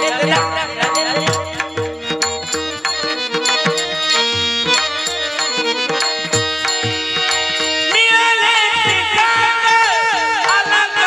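Marathi devotional kirtan music: a harmonium plays a melody over steady hand-drum strokes and the clink of small cymbals, and a voice joins singing about eight seconds in.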